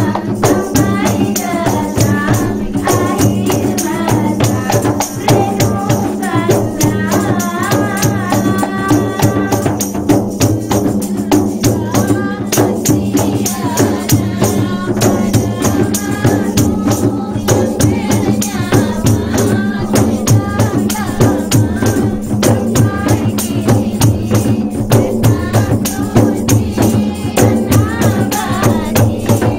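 A woman singing through a microphone, accompanied by a group of women playing rebana frame drums struck by hand in a steady, busy rhythm.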